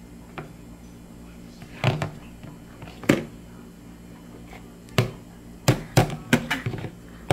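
A silicone bowl knocking against a plastic high-chair tray as a toddler lifts and sets it down: a few separate knocks, then a quick run of taps near the end.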